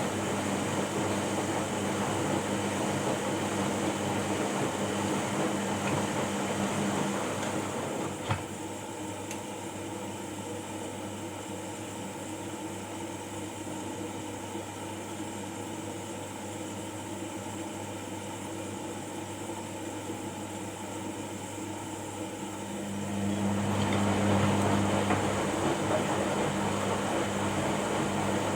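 Washing machine running: a steady motor hum that eases off about a third of the way in with a single click, stays lower for a stretch, then picks up again near the end with a stronger low hum.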